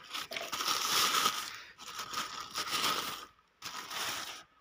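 Plastic wrapping crinkling as a new air filter element is unwrapped, in a run of rustles with a brief pause near the end.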